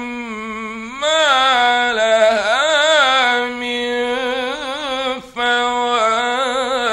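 Male Quran reciter chanting in the melodic mujawwad style, holding long ornamented notes with wavering pitch. The voice breaks off briefly about five seconds in, then takes up a new held note.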